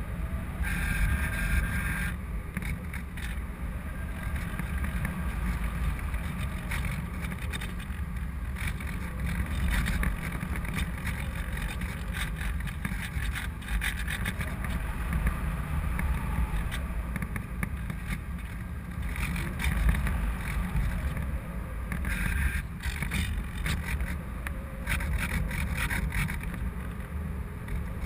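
Airflow rushing and buffeting over a GoPro camera mounted on an RC glider in flight: a steady low rumble that swells and eases in gusts. A brief higher-pitched whine comes through about a second in and again later on.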